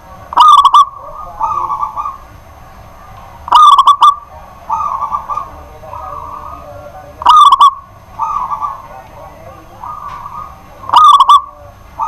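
Zebra dove (perkutut) cooing: four loud, rapidly rattling coo phrases about three and a half seconds apart, with softer drawn-out coo notes between them.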